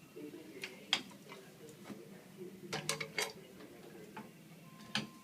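Scattered light clicks and knocks of hard objects being handled, with a quick cluster of sharp clicks about three seconds in and a short steady beep near the end.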